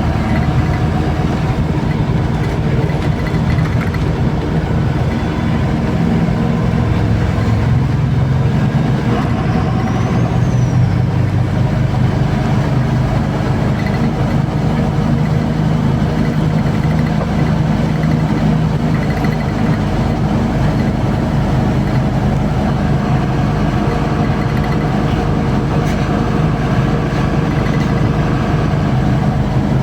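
Inside a MAZ-203 city bus on the move: steady engine drone with road noise, the engine pitch rising and falling a little about a third of the way through.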